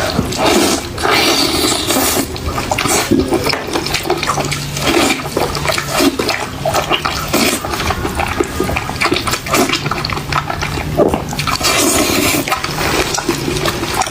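Loud, wet eating sounds of someone tearing into a braised lamb's head: chewing, smacking and sucking meat off the bone in a dense, irregular stream.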